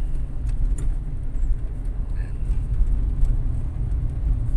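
Low, steady rumble of a car's engine and tyres heard from inside the cabin while driving.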